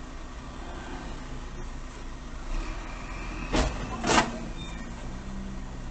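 A car engine idling with a steady low hum, recorded from inside the stopped car. A little past halfway through come two short, sharp, loud noises about half a second apart, the second the louder.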